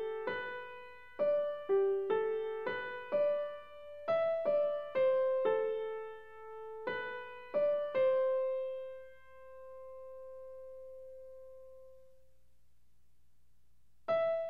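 Background piano music: a slow melody of single notes that ends on a long held note dying away about eight seconds in, then resumes just before the end.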